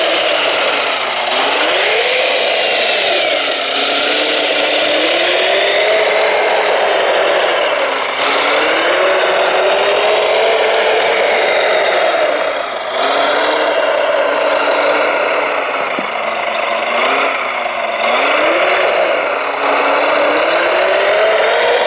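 Radio-controlled model vehicle motors and gearing whining, the pitch rising and falling again and again as the models speed up and slow down.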